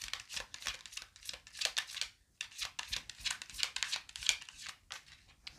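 A deck of tarot cards being shuffled by hand: quick runs of crisp card clicks and slaps. There is a short pause about two seconds in before the shuffling resumes.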